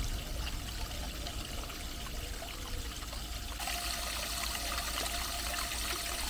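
Stone fountain: water jetting from a carved mask's mouth and splashing into the basin below. The splashing grows louder and brighter about three and a half seconds in.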